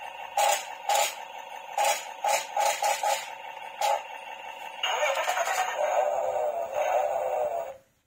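Electronic sound effects from a remote-control toy forklift's built-in speaker: a string of short bleeps over a steady electronic tone, then about three seconds of a denser effect with falling pitch sweeps that cuts off suddenly near the end.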